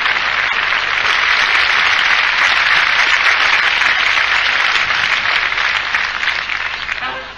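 Live audience applauding, a dense, steady clapping that thins and fades near the end.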